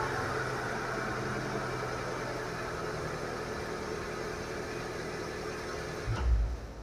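Chevrolet Celta running on axle stands with its front wheels spinning in gear during a wheel-bearing roar test: a steady mix of engine, drivetrain and spinning wheel that slowly fades. A short low thump about six seconds in.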